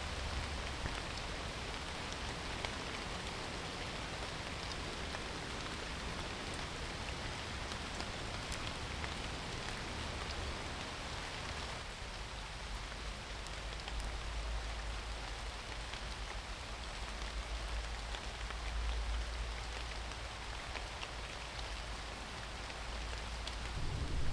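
Steady rain falling in a garden, with fine patter of drops over an even hiss and a low rumble underneath.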